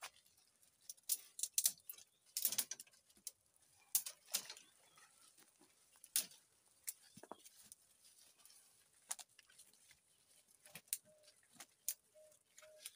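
Irregular sharp cracks, clicks and rustles of feet and bodies pushing through dry brush and grass, with twigs snapping. Near the end a few short, low-pitched calls repeat about every half second.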